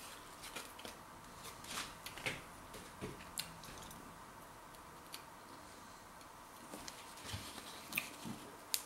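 Faint crunching of an onion-flavour multigrain pop, a light puffed crispbread, being chewed: a scatter of small crisp snaps and crackles, with a second cluster near the end as the pop is broken by hand.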